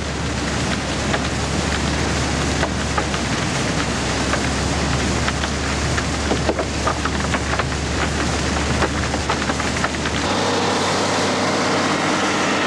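Dredged sand-and-water slurry gushing from a discharge pipe: a steady rushing hiss crackling with many small ticks of sand and grit, over a low hum. About ten seconds in, the diesel engine of a crawler bulldozer working the wet sand fill comes in.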